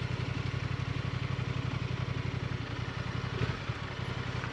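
Motorcycle engine idling steadily with an even, rapid low pulse. A single light knock comes about three and a half seconds in.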